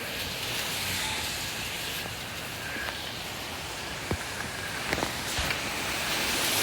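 Hurricane wind rushing steadily, slowly growing louder toward the end, with a few faint knocks about four and five seconds in.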